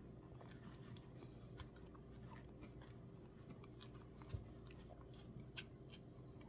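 Near silence with faint chewing from a mouthful of Blizzard soft serve and cookie pieces, and scattered small clicks. A single soft knock a little past four seconds in.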